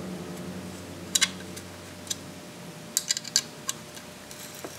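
Sparse, sharp small clicks of a tool working the bolts of a Centurion Arms C4 handguard rail as they are tightened a half turn at a time: one click about a second in, a quick cluster of clicks around three seconds in, and a last one near the end.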